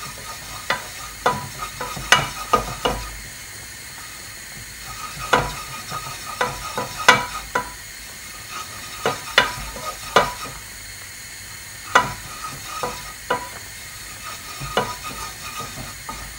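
A spoon stirring a blonde roux of butter and flour cooking in a hot pan, to cook out the flour: irregular knocks and scrapes of the spoon against the pan, each ringing briefly, over a steady sizzle.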